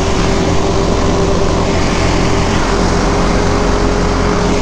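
Motorcycle engine running at a steady speed while riding, holding one unchanging note, with wind rushing over the microphone.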